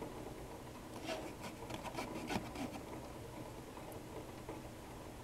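Faint rubbing and a few light clicks from a glass thermometer being handled in a nested foam-cup calorimeter, clustered between about one and two and a half seconds in.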